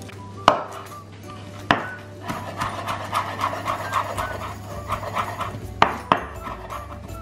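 Chef's knife chopping fresh parsley on a wooden cutting board: a couple of sharp knocks, then a run of quick, even chops for about three seconds, and two more sharp knocks near the end.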